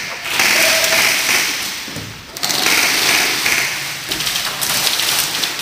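Airsoft electric guns firing long full-auto bursts, a fast mechanical rattle. It breaks off briefly about two seconds in and then resumes.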